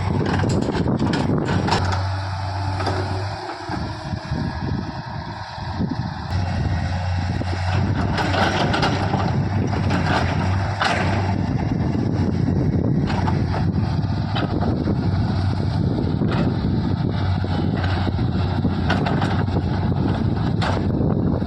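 Diesel engine of a JCB earthmoving machine running with a steady low hum, dipping for a few seconds about two seconds in before coming back, with scattered short clanks and knocks over it.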